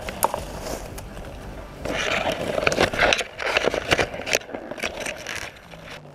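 Leaves and twigs rustling and scraping against a head-mounted camera and clothing as someone pushes through dense undergrowth, with a louder stretch of irregular scrapes and snaps in the middle.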